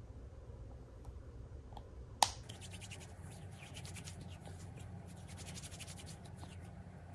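Hands rubbing lotion in, a run of soft scratchy rubbing strokes, after a single sharp click about two seconds in.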